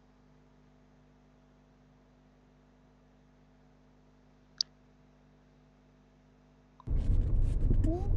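Near silence with a faint steady hum, broken by a single sharp click about four and a half seconds in. Near the end the sound cuts in suddenly: a loud low rumble of traffic heard from inside a car's cabin.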